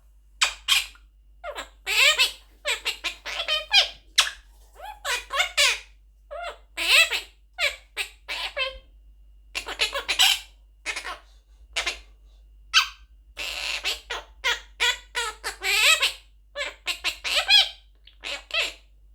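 Young Quaker parrot (monk parakeet) talking: a fast string of short, high-pitched, speech-like calls and squawks with brief pauses between them.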